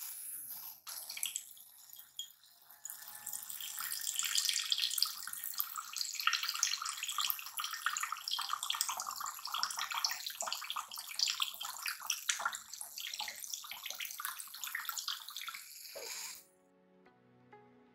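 Water jet from a homemade bottle-cap mini water pump driven by a small DC motor, splashing steadily into a glass bowl of water, with a faint low hum under it. The splashing cuts off suddenly about 16 seconds in.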